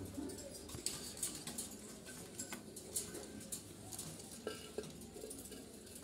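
Scattered light taps and clicks as a terracotta nest pot and a wire budgerigar cage are handled, with a few short, faint budgerigar chirps a little past halfway.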